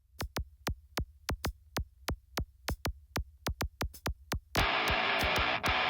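Electronic background music: a drum-machine beat of quick, even ticks over a low bass, with the full, louder track coming in abruptly near the end.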